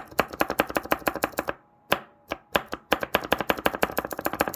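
Mechanical keyboard keys being pressed in quick succession, a rapid run of sharp clicks and clacks at about eight to ten a second, broken by a short pause about two seconds in.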